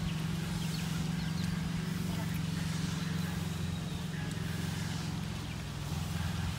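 A small engine or motor running steadily with an even, low hum that holds one pitch.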